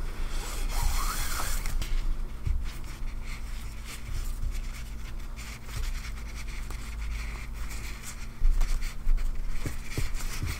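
Nylon paracord rubbing and sliding against itself and the fingers as a cobra stitch is worked and pulled tight, a scratchy rustle. It gets louder near the end as the strands are drawn tight, over a steady low hum.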